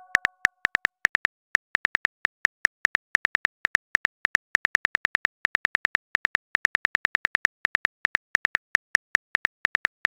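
Smartphone on-screen keyboard clicks as a text message is typed: a quick, uneven run of light taps, about six a second.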